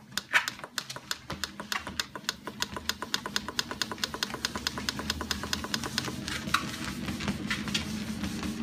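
DogPacer dog treadmill running, its motor hum slowly getting louder, with a rapid, even clicking of a dog's claws on the moving belt, about eight to ten clicks a second.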